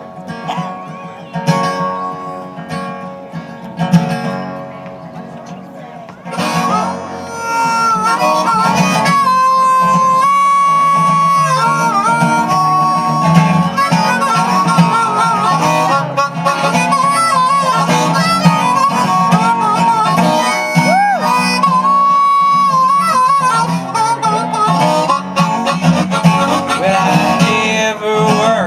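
Instrumental intro of a country/folk song: acoustic guitar alone at first, then about six seconds in a harmonica comes in loudly over the band, playing long held notes with bends and wavers.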